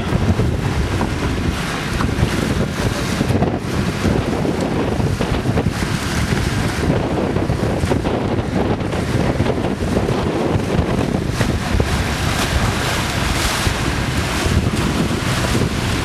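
Strong wind buffeting the microphone over the steady wash of sea water against a sailing catamaran's hulls.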